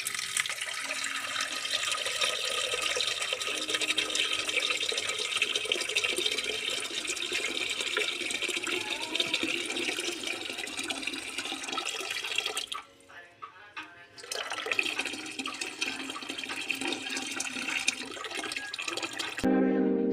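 Water running from a kitchen tap into a sink. It stops briefly about two-thirds of the way through, then runs again. Music starts near the end.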